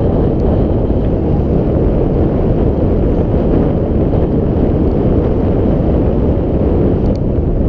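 Steady wind rumble buffeting the microphone of a camera aboard a moving boat.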